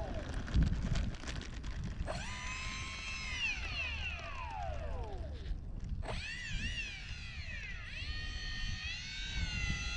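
Electric ducted fans of an E-flite A-10 RC jet whining as the throttle is worked on the ground: they spool up sharply about two seconds in, hold, then wind down, spool up again about six seconds in, and waver near the end. Wind rumbles on the microphone.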